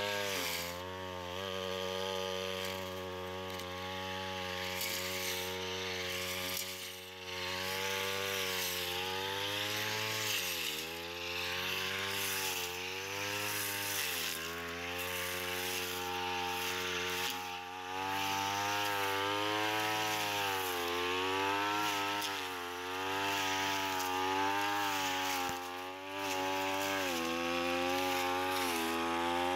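Backpack brush cutter running while cutting grass, its small engine's pitch dropping and picking back up again every few seconds as the cutting head swings through the weeds.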